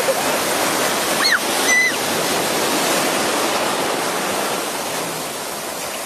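Shallow ocean surf washing in and foaming around, a steady loud rush of water. About a second and a half in come two short high squeals.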